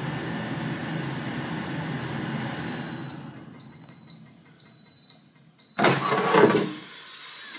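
Dreo ChefMaker air fryer's fan whirring steadily, then winding down as the cooking program ends, while four short high beeps signal the cycle is finished. About six seconds in, the drawer is pulled out with a loud clunk and scrape.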